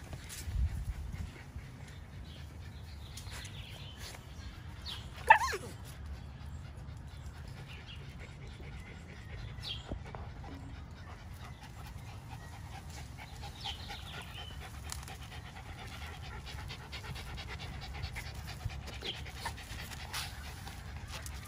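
Puppy panting, with one short high yelp that falls steeply in pitch about five seconds in, and a dull thump just after the start.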